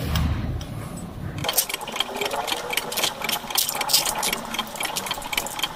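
A rapid run of small metallic clicks from about a second and a half in, as screws are turned back into the vacuum pump's housing.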